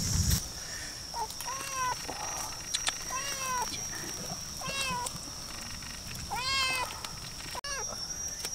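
Young kitten meowing repeatedly, about six short, high, rising-then-falling meows spaced a second or so apart.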